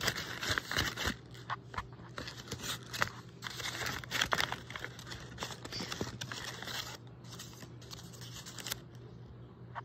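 Paper puppets being handled: sheets of marker-coloured paper rustling and crinkling in irregular bursts, thinning out after about seven seconds.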